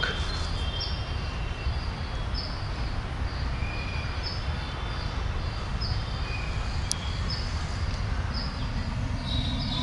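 Small birds chirping, short high calls repeating roughly once a second, over a steady low rumble.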